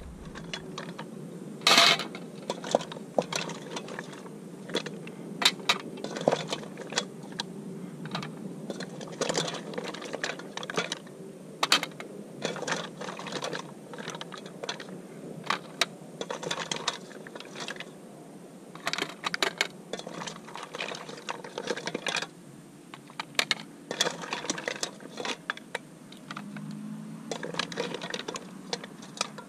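Cooked mussel shells clicking and clattering against each other, the steel pot and the plate as they are lifted out of the pot and served, in quick irregular clicks throughout.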